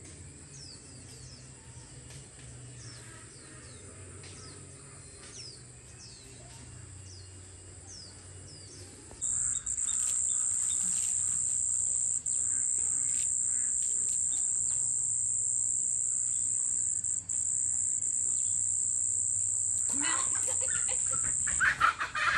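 Birds chirping faintly, then a loud, high, steady insect drone sets in suddenly about nine seconds in and holds until near the end, when chickens start clucking.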